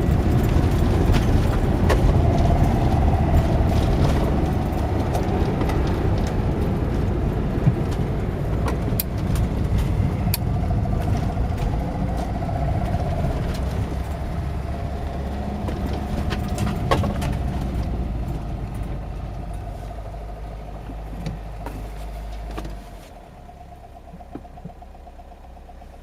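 The 1989 Talbot Express's 2-litre petrol engine and road noise as the van is driven slowly, with a few sharp clicks. The noise tails off and drops sharply near the end as the van stops, leaving a quieter steady running.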